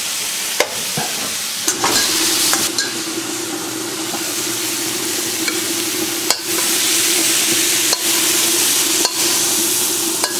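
Shrimp, peppers, onions and celery sizzling in a hot wok as they are stirred, with a sharp clack of the spatula against the wok every second or two. A steady hum joins about two seconds in.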